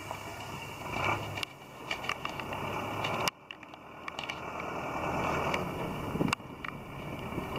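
Wind buffeting the camera microphone, a steady rumble and hiss with small handling clicks. It breaks off abruptly about a second and a half in, again near the middle, and again near the end, coming back each time.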